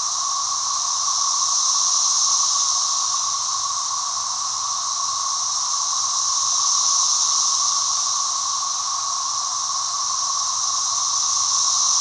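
Dense chorus of Brood XIX periodical cicadas: a steady, loud droning hiss with a lower hum and a brighter, higher band, swelling and easing in slow waves about every five seconds.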